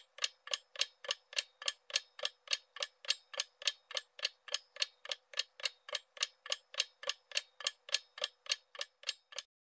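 Clock-ticking sound effect running under a quiz countdown timer: even, sharp ticks about three and a half a second, which stop abruptly near the end.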